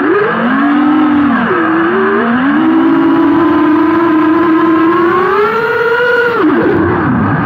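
FPV quadcopter's electric motors and propellers whining, heard from the camera on board, the pitch falling and rising with the throttle: a dip about two seconds in, a long slow climb, then a sharp drop near the end.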